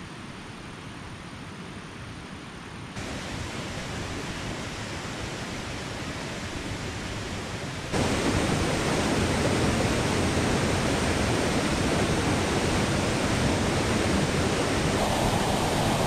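Steady rushing of running water from a mountain stream. It steps up in level about three seconds in, and again louder about eight seconds in.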